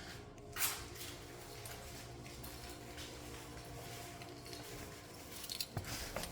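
Faint clicks and rattles of a windshield wiper blade being worked loose from its wiper arm: one click a little over half a second in, and several more near the end, over a faint steady hum.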